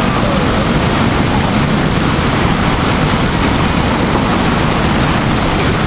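Whitewater rapids rushing, a loud steady roar of churning water.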